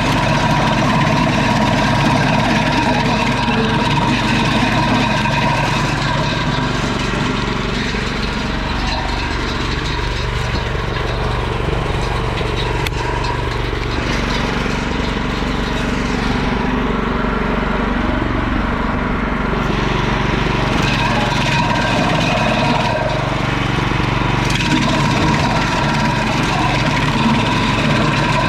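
Petrol-engine wood chipper running steadily, its note shifting for a few seconds past the middle.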